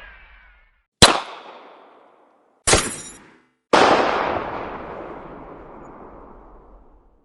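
Single gunshot sound effects, played one after another. A sharp shot comes about a second in and dies away within a second. A shorter shot with a ringing tone follows near the three-second mark. A second later comes a loud shot whose echo dies away over about three seconds.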